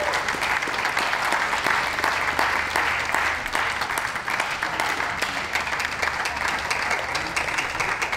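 Ringside audience applauding steadily: a dense patter of many hands clapping.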